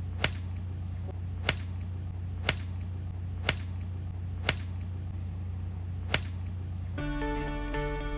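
Six sharp cracks, about one a second, over a steady low hum; music with plucked strings starts about seven seconds in.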